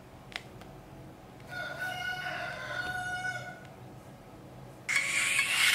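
A brief click as the audio plug goes into the phone, then a rooster crows for about two seconds. About five seconds in, music starts loudly from the old speaker driven by the homemade battery-powered mini amplifier.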